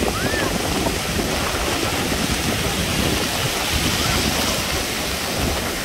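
Sea surf breaking and washing up a beach in a steady rush of noise, with wind buffeting the microphone.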